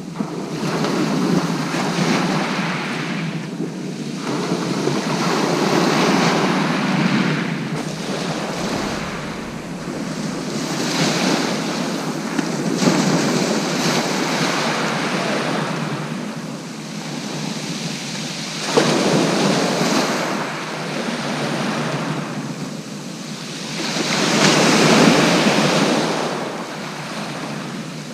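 Sea waves breaking and washing up the beach in surges every few seconds, the loudest near the end, with wind buffeting the microphone. A single short knock about two-thirds of the way through.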